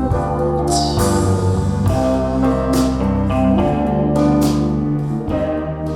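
Instrumental break in a slow blues song: sustained bass and chord notes with regular struck accents, no vocals.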